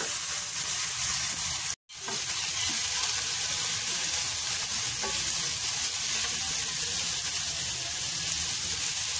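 Chicken strips and carrot strips sizzling steadily in hot oil in a frying pan, stirred with a wooden spatula. The sound drops out completely for a moment about two seconds in.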